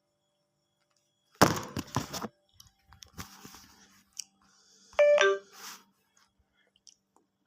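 A quick burst of clattering knocks, then about three seconds later a short chime of a few pitched electronic notes.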